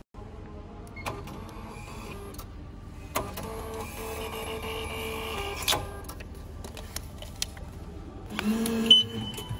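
Ticket vending machine taking payment and issuing an admission ticket. A few clicks, then a mechanical whir lasting about two and a half seconds from about three seconds in, then a shorter whir with a short beep near the end.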